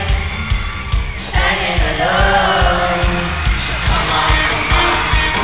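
Live pop concert heard from the arena floor: a boy band singing over a steady drum and bass beat through the PA.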